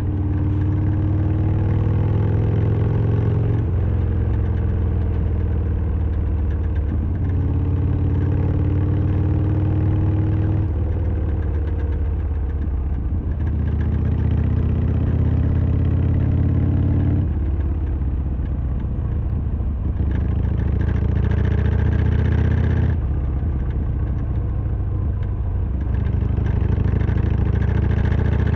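Harley-Davidson Sportster XL1200R's V-twin engine running on the move. Its pitch climbs and then drops back again and again, every few seconds, as the bike accelerates and gears change.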